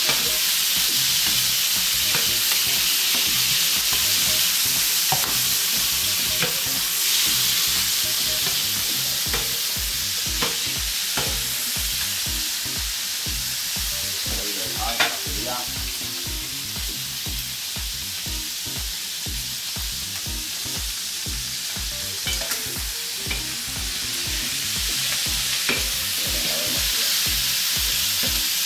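Rabbit pieces and flat green beans frying in olive oil in a paella pan, a steady sizzle, with the clinks and scrapes of a metal spatula every few seconds as they are stirred.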